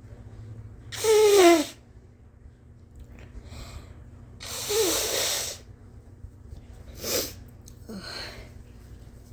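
A woman sneezing three times: a loud sneeze about a second in, another near the middle and a shorter one about seven seconds in, each with her voice falling in pitch, with breaths in between. The sneezes are deliberately induced.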